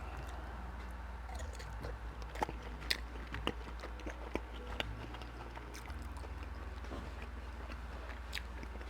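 Close-miked eating sounds: a scatter of wet mouth clicks and smacks as someone chews, busiest in the middle, over a steady low hum.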